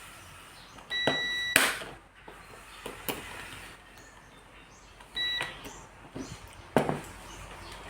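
An electronic beeper sounds twice: a held high beep about a second in, ending in a sharp click, and a shorter beep about five seconds in. Sharp clicks and knocks from handling come between and after them, and the loudest knock is near the end.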